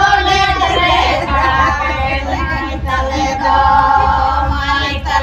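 A group of women singing a Ho wedding song together in long, held notes.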